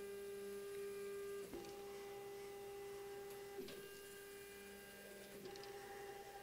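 CNC AutoBlaster's gantry drive motors whining faintly and steadily as the blast head traces the programmed box outline in a contour run, the tone breaking and shifting briefly about every two seconds.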